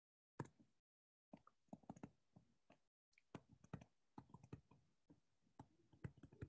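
Faint, irregular clicking and tapping of a stylus on a touchscreen as handwriting is put on the screen.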